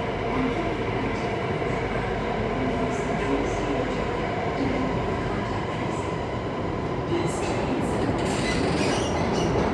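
Alstom Metropolis C830C metro train under way, heard from inside the passenger car: a steady rumble of wheels on rail with a steady hum. From about seven seconds in come scattered clicks and rattles.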